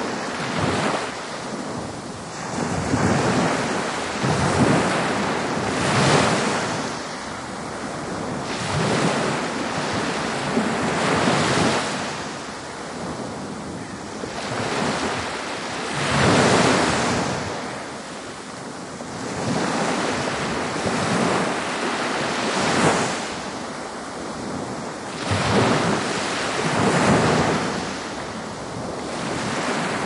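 Ocean waves breaking on the shore: a continuous rushing hiss of surf that swells as each wave comes in and ebbs away, every few seconds.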